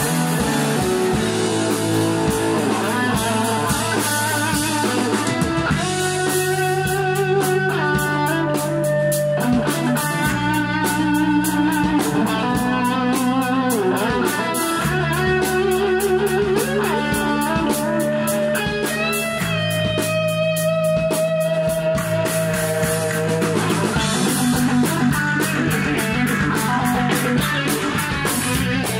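Rock band playing live: electric guitars play melodic lines over held bass notes that change every few seconds, with a Mapex Saturn V drum kit keeping time on Zildjian cymbals and hi-hats.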